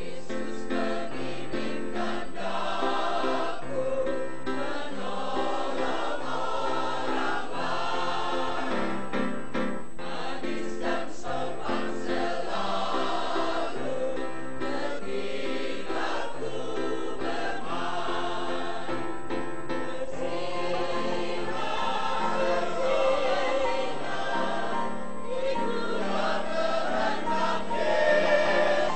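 Mixed choir of men and women singing a sacred song, full and steady, swelling a little near the end.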